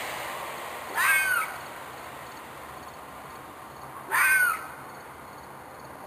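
An animal's harsh screeching call, twice, about three seconds apart, each about half a second long with a rising-then-falling pitch. The owner takes it for a fox or a coyote in distress. A broad background noise fades away during the first second.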